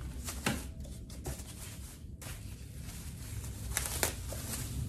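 Black plastic wrapping being ripped and pulled off a canvas painting: crinkling with several sharp rips, the loudest about half a second in and again near the end.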